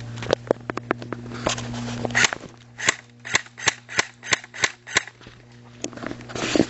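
Airsoft guns firing: scattered sharp single shots, then a run of about ten shots at roughly three a second.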